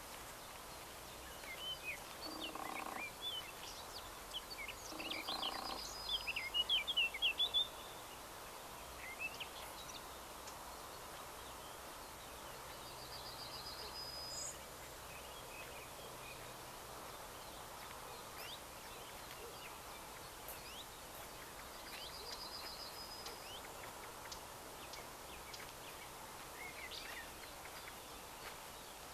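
Wild songbirds singing: a busy run of chirps and whistles in the first several seconds, then a short high trill a few times over faint steady background hiss.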